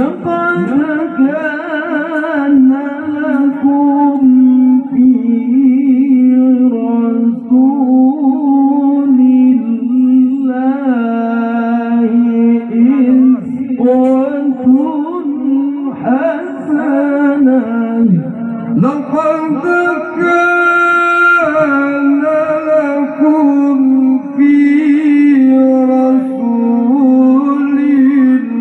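A male qari chants Qur'an verses in the melodic tilawah style. He holds long notes with ornamented runs and glides between them, and his voice is amplified through a microphone and PA system.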